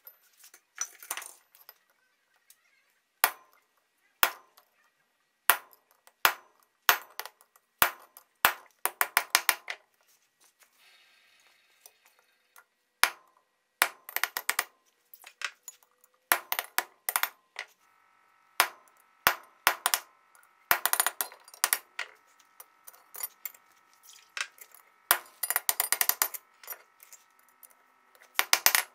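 Blacksmith's hammer striking a hot steel bar on an anvil, in irregular runs of quick blows broken by short pauses. In the second half the anvil rings on between the blows.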